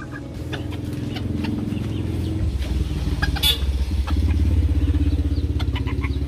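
A motor vehicle's engine running steadily, growing louder from about four seconds in, with a few faint clicks over it.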